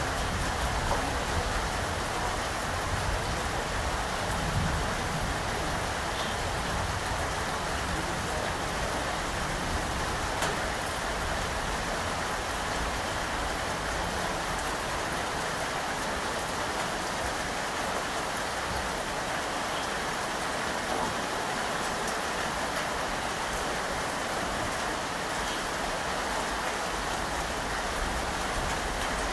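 Steady rain falling, an even unbroken hiss of drops striking surfaces.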